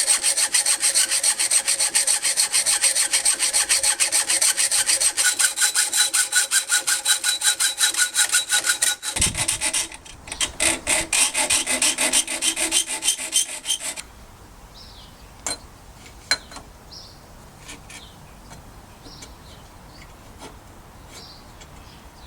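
A hand tool rasping back and forth on metal in fast, even strokes, with a ringing tone. The strokes stop briefly about nine seconds in and end about fourteen seconds in, followed by a few light clicks.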